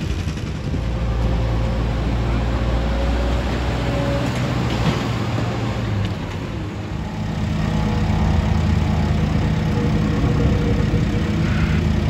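Diesel engines of construction machinery running steadily at a work site. The engine note shifts to a different, slightly louder hum about seven seconds in.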